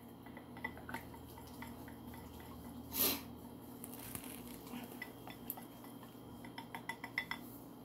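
A whisk clinking and scraping against a glass bowl while mixing a thin marinade until smooth. There are light scattered taps, one brief louder scrape about three seconds in, and a quicker run of small clicks near the end.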